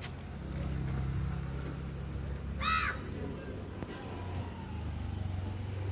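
A single crow caw about two and a half seconds in, over a steady low hum.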